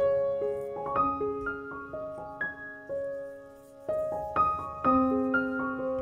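Background piano music: a gentle melody of single notes and chords.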